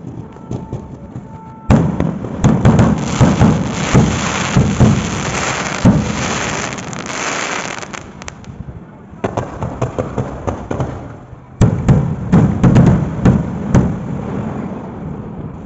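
Fireworks going off in rapid, dense volleys of bangs and crackle. A sudden loud barrage starts about two seconds in, eases briefly past the middle, and a second sudden barrage breaks out near the end before fading.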